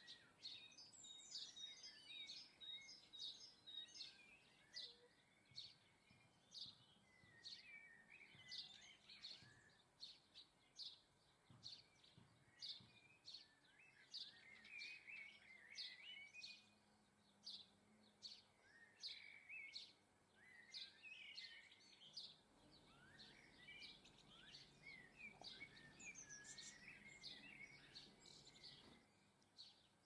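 Small garden songbirds chirping and twittering, faint: a steady run of short high chirps, about two a second, with bursts of twittering in between.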